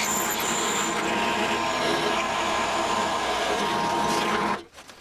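Electric drill running steadily as it bores a hole through a steel part, cutting off about four and a half seconds in once the bit is straight through.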